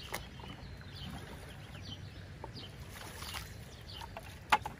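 Plastic bucket dipped into lake water and filled, with water splashing and sloshing, and a sharp knock near the end. Small birds chirp repeatedly in the background.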